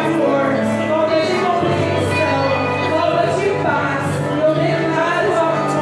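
Worship music with singing over steady held low notes.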